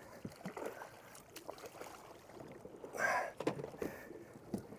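Light knocks and taps on a plastic fishing kayak while a hooked mahi is lifted aboard on the line, with one short, louder burst about three seconds in.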